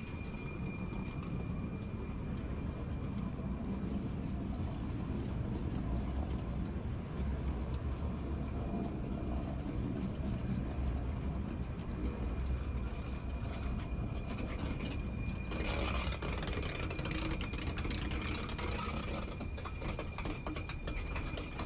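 Rhaetian Railway electric train standing at the platform, giving a steady machinery whir over a low hum, with a thin high steady tone. A louder hiss swells for a second or two about fifteen seconds in.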